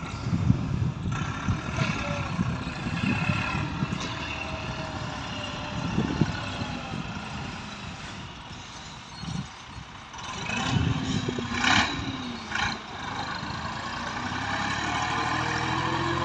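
Massey Ferguson 260 tractor's three-cylinder diesel engine labouring under heavy load as it hauls a loaded sand trolley up a steep sandy slope, with two sharp clanks about two-thirds of the way through. Near the end the engine note steadies and rises as it pulls on up the grade.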